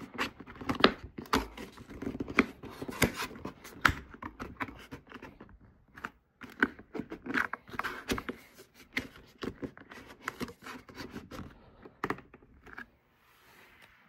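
A plastic card scraping and clicking in the seam of a monitor's plastic back cover as the cover is pried and wiggled loose from its clip hooks: irregular sharp clicks and scratches that thin out near the end.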